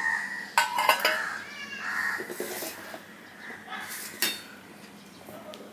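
Steel serving spoon and bowls clinking a few times, with one sharp clink about four seconds in. Between the clinks come a few high, wavering calls, like a cat mewing.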